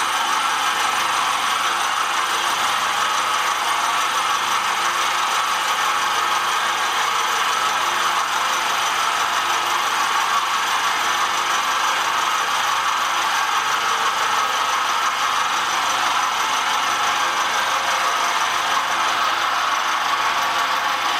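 Milling machine running steadily while its end mill takes a light finishing cut along the cast iron fork of a shaper rocker arm, the iron cutting cleanly.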